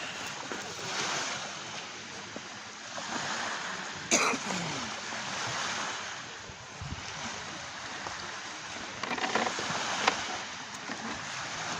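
Sea waves washing in, rising and falling in slow swells, with a sharp click about four seconds in.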